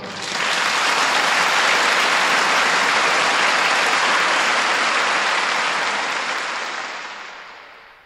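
Concert audience applauding at the end of an orchestral piece: steady clapping that fades out over the last couple of seconds.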